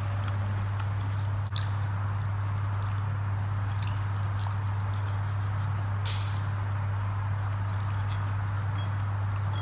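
Eating by hand: rice and mushroom curry mixed on a plate with the fingers and chewed, with scattered short clicks and smacks, over a steady low hum.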